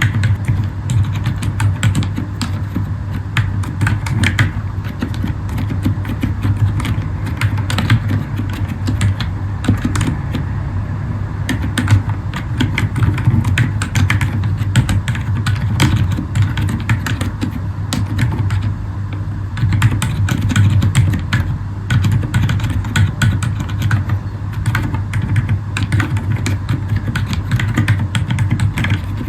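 Continuous typing on a Zifriend ZA63 mechanical keyboard with Akko Fairy silent switches: muted keystrokes in quick, steady succession.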